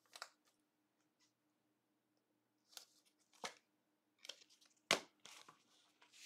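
Faint, scattered clicks and rustles of trading cards, plastic penny sleeves and rigid top loaders being handled, the loudest a sharp click about five seconds in.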